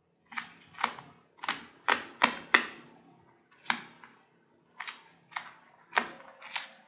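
Kitchen knife chopping onion on a plastic cutting board: about eleven sharp, uneven knocks of the blade on the board as the onion is diced small.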